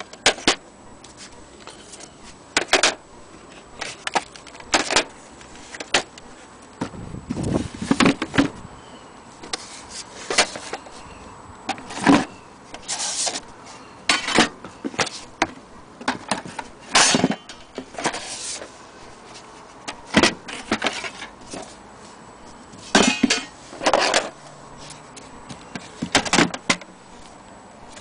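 Wooden photographic plate holders (dark slides) of a vintage plate camera being handled: irregular clacks and knocks of wood on wood, with short scraping rubs as they are picked up and shifted.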